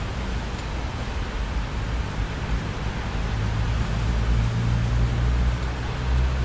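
Steady heavy rain with a low rumble of thunder underneath that swells and rolls for a few seconds past the middle.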